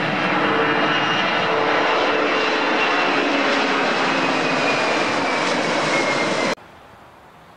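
Boeing 767's twin jet engines at takeoff thrust as the airliner lifts off and climbs past: a loud, steady jet roar with a whining tone that slowly falls in pitch. The sound cuts off abruptly about six and a half seconds in, leaving only faint background noise.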